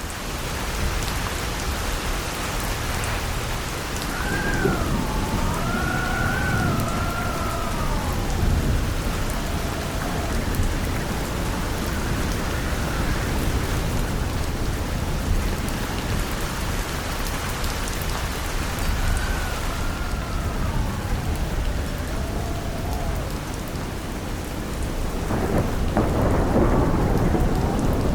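Heavy rain with strong gusting wind. Twice the wind howls with a wavering pitch that rises and falls, over a deep, steady rumble that swells near the end.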